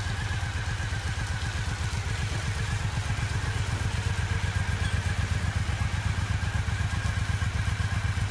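Triumph Bonneville America LT's 865cc air-cooled parallel-twin engine idling steadily, with an even, rapid low pulse.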